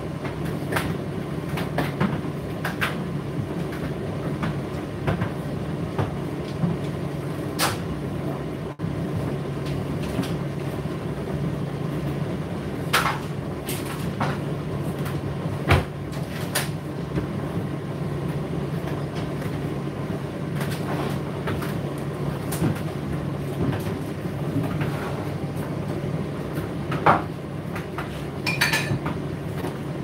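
Indesit IDC8T3 condenser tumble dryer running: a steady low motor and fan hum with the drum turning, broken by irregular clicks and knocks from the load tumbling inside the drum.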